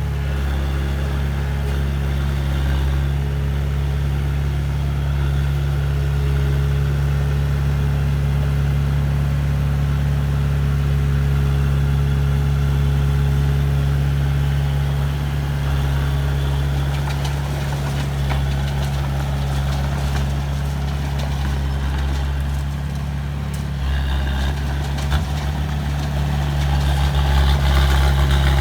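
Heavy diesel engine of construction machinery running steadily at low revs, growing louder near the end.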